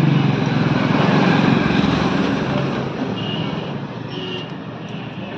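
Road traffic noise: a motor vehicle passing close by, rising over the first two seconds and then slowly fading, with two brief faint high tones in the second half.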